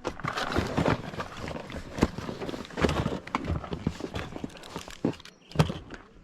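Irregular clatter and rustling of camping gear and bags being handled, with sharp knocks about two seconds in and again near the end.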